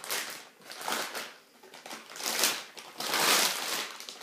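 Plastic piping bag rustling in the hands as it is folded back over itself to be filled, in several short bursts, the longest near the end.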